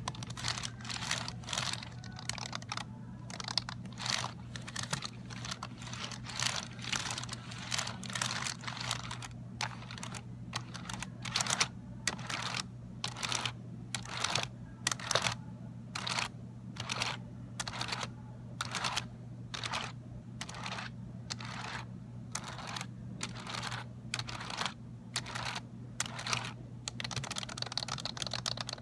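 Fast, continuous typing on a Dell computer keyboard: runs of quick plastic key clicks over a steady low hum.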